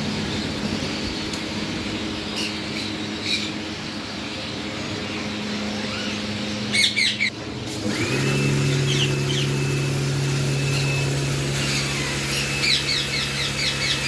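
Pet parrots chirping and calling over a steady hiss, with a loud cluster of sharp calls a little before halfway. About halfway through a steady low machine hum sets in, and a rapid run of chirps comes near the end.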